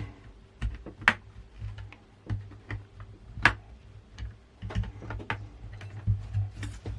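Plastic retaining clips of an LCD monitor's front bezel frame clicking and snapping as the frame is worked loose, an irregular run of light clicks with two sharper snaps about one and three and a half seconds in.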